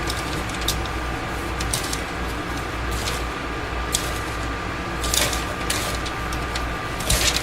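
Dry bath-bomb mix of baking soda and citric acid being stirred in a bowl, with short irregular scraping and rustling strokes, over the steady hum of a fan.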